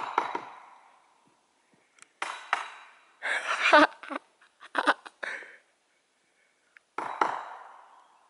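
Great spotted woodpecker drumming on a dead treetop: several short bursts of rapid knocks, each echoing away for up to a second, the loudest near the middle.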